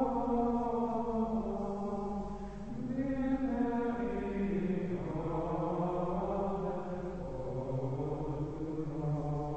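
Carthusian plainchant: male voices singing a slow melody in unison, holding long notes and moving step by step to new pitches.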